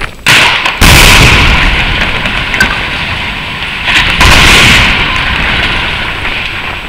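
Explosive demolition charges bringing down steel colliery headstocks: a small bang, then a loud blast about a second in and a second loud blast about four seconds in, each followed by the long rumble of the towers collapsing, slowly dying away.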